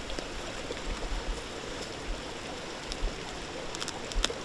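Steady rushing of a creek running close by. A few sharp clicks near the end as boots are being laced.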